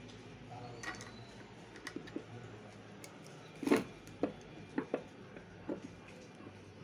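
Scattered light clicks and knocks of metal parts being worked by hand as an oil seal is fitted over the shaft in a pump motor's end cover, the loudest knock a little past halfway.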